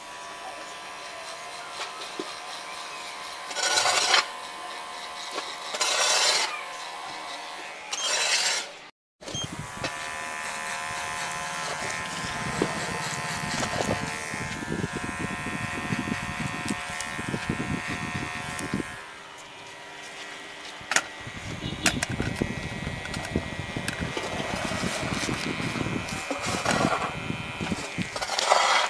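Cordless T-blade hair trimmer buzzing steadily as it cuts short hair held on a comb. Three short, louder rushes of noise come in the first nine seconds, and the sound cuts out for a moment about nine seconds in.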